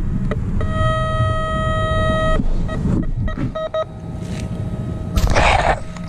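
Metal detector's electronic tone sounding over a deep coin target: short beeps, then a steady held tone for about two seconds, then more quick beeps. About five seconds in, a brief loud scraping rush.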